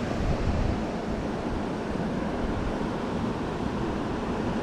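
Steady rushing of flowing creek water, with wind rumbling on the microphone.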